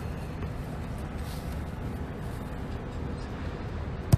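A football kicked once near the end, a single sharp thud of boot on ball, over a steady low background rumble.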